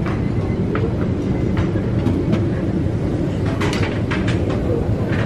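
Steady low rumble of an airport lounge's background noise, with a handful of sharp clinks of dishes and serving utensils about three and a half to four and a half seconds in.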